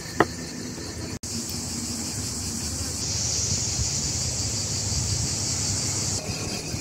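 A single sharp chop of a knife onto a wooden cutting board just after the start, then a steady high-pitched insect chorus that swells louder in the middle and eases near the end.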